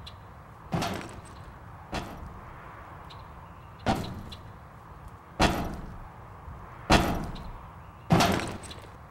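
A slow series of six sharp bangs, each with an echoing decay, about one every second and a half.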